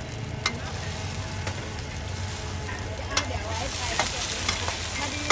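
Mussel pancakes (hoi tod) sizzling in shallow oil on a large flat wok, the frying getting louder about halfway through. Metal spatulas clink and scrape against the pan several times as they are worked under the pancakes.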